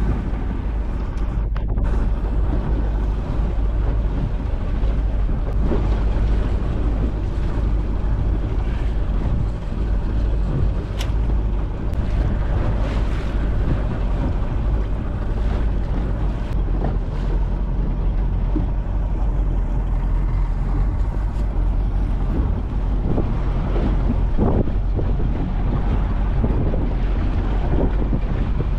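Wind buffeting the microphone over the steady running of a boat's Johnson 90 outboard motor at trolling speed, with choppy water splashing against the hull.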